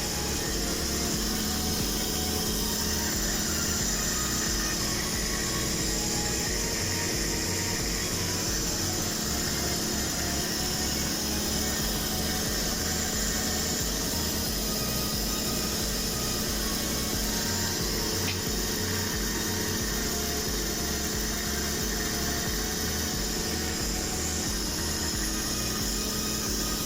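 Electric water pump running steadily on a test run after its leaking seal was replaced: an even motor hum with a steady hiss over it.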